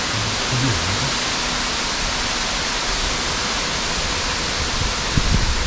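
A steady, even hiss like rushing water, with low wind buffeting on the microphone starting near the end.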